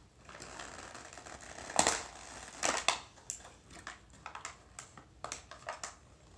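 Plastic toy packaging being handled and torn open: a rustling crinkle with several loud sharp crackles about two to three seconds in, then scattered short crackles and clicks.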